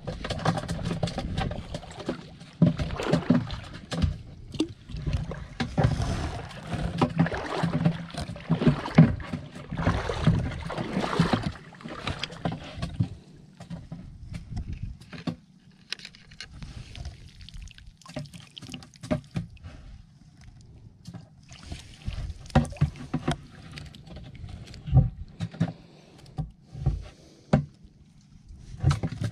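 Water splashing and sloshing as hand scoop nets are dipped and swept through shallow water, busy for the first dozen seconds, then fewer, scattered small splashes and knocks.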